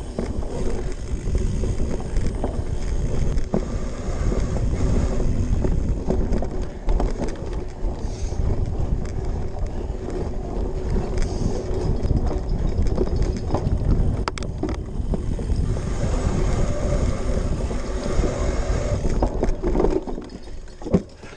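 Cyclocross bike ridden over rough dirt and grass: knobby tyres rumbling, with the chain and bike rattling and clicking over bumps and wind buffeting the microphone. The noise eases near the end as the bike slows on a climb.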